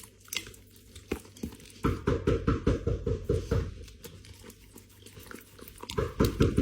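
A dog in a small room, making a run of quick, rhythmic sounds about two seconds in and again near the end.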